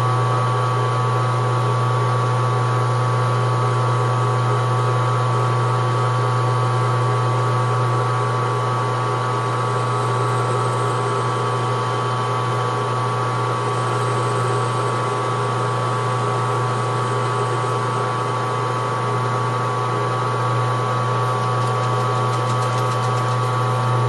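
Metal lathe running steadily: a constant low motor hum with a fainter steady whine above it.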